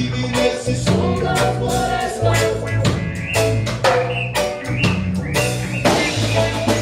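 Live band playing an instrumental passage of a reggae song: drum kit with rimshots, snare and bass drum keeping a steady beat over a bass line.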